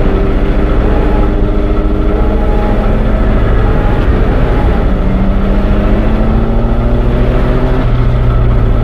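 Train sound effect: a loud, dense rumble with several steady tones running through it, one of them slowly rising in pitch in the middle.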